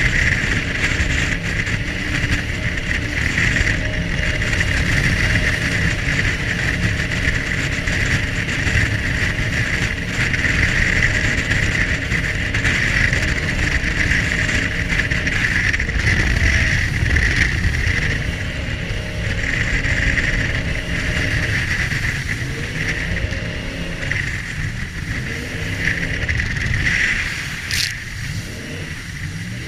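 Commercial jet boat running at speed: a steady engine rumble under a loud rush of water and air, with the engine note dipping and rising a few times in the second half. A single sharp click near the end.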